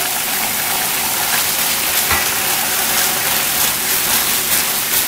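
Chopped garlic, soy sauce and oyster sauce sizzling in hot oil in a nonstick frying pan: a steady hiss. A few light scrapes come from a silicone spatula stirring the sauce.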